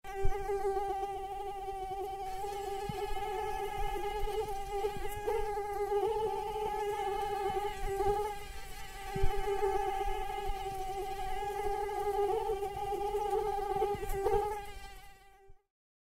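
Mosquito buzzing in flight, its wingbeat making a steady high whine that wavers slightly in pitch and loudness, then fades out and stops near the end.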